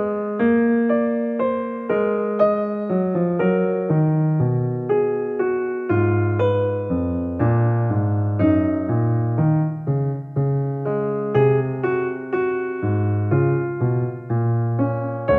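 Background piano music, a continuous melody of struck notes that each die away.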